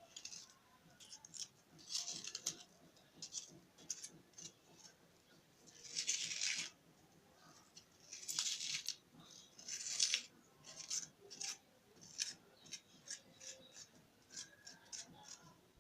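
Raw onion being cut and scraped out by hand: scattered crisp, short cutting strokes, with a few longer scrapes about 6, 8½ and 10 seconds in, as the inside of the onion is hollowed out.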